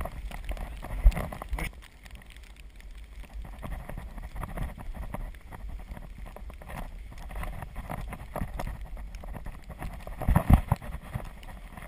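Azub recumbent trike riding over rutted, packed snow: tyres crunching and the trike rattling with many irregular knocks over a low rumble, with heavy thumps about a second in and again near the end.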